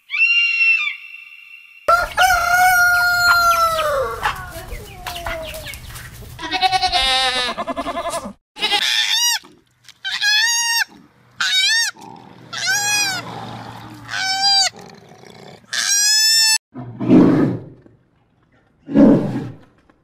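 A string of different animal calls: a short high call, then a long pitched call that falls away at its end, a run of about eight short arched barking calls roughly one a second, and two low grunts near the end.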